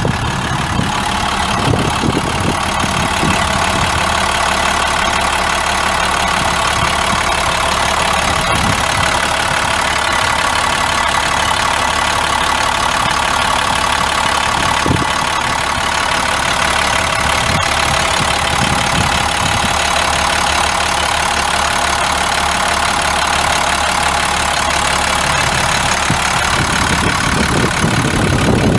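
International DT466 7.6-litre inline-six turbo diesel idling steadily.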